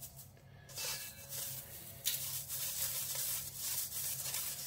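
Dried herbs being rubbed and shaken through a metal mesh sieve into a stainless steel bowl: a dry, scratchy rustle that starts about a second in and gets louder about two seconds in.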